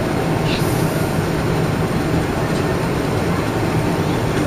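Steady cabin rumble of a Boeing 777-300ER taxiing, its GE90 engines running at low thrust, heard from inside the cabin.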